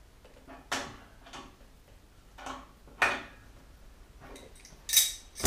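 Spanners clicking and clinking on a radiator valve's compression nut as it is tightened onto 10mm copper pipe: about six sharp, irregular clicks, the loudest near the end with a brief metallic ring.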